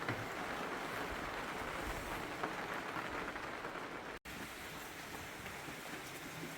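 Steady rain falling and pattering, an even hiss, with a momentary total dropout in the sound just past four seconds.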